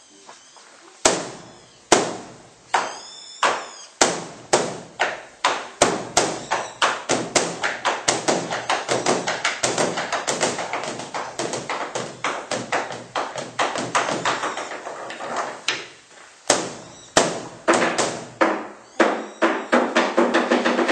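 Large Buddhist temple drum beaten with sticks. Single strikes about a second apart speed up into a fast continuous roll, stop briefly about two-thirds of the way through, then start again slowly and quicken once more.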